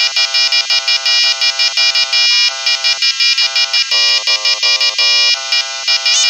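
Ringtone-style synthesizer arrangement of a pop song: quick, short chord stabs in a steady bouncing rhythm, with a bright, high beeping melody on top.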